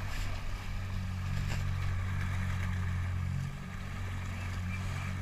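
Small motorboat's engine running steadily under way, a low steady hum that dips briefly about three and a half seconds in, over a hiss of wind and water.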